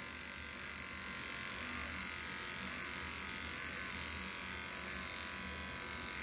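Electric dog grooming clipper running steadily as its blade trims the short hair on a poodle's muzzle.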